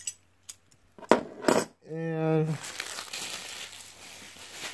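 Hard Beyblade parts clicking and clinking as they are set down on a pile of other Beyblade parts, with two sharper knocks about a second in, followed by softer handling rustle.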